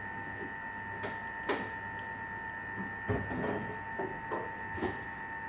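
Scattered sharp clicks and light knocks of small hard objects being handled, over a steady high whine.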